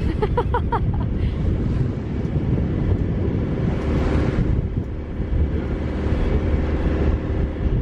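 Wind buffeting the microphone on a sailboat under way, over the rush of sea water along the hull, with a gust or splash swelling about four seconds in.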